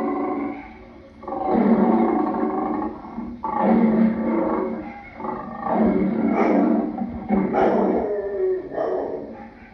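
Lion roaring: a run of drawn-out calls, each a second or two long with short breaks between them.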